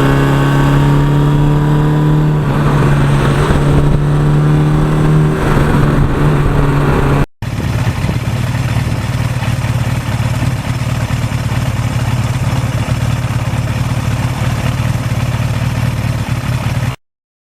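1982 Suzuki GS1100E's inline-four engine running, its note shifting slightly in pitch. After a sudden cut about seven seconds in, it settles into a steadier, noisier drone.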